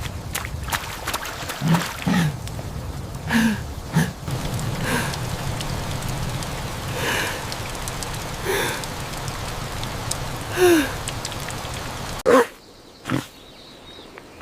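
Short non-word animal vocal sounds from cartoon characters, brief grunts and squeaks every second or two, some gliding in pitch, over a steady background hiss. The hiss cuts off sharply about twelve seconds in.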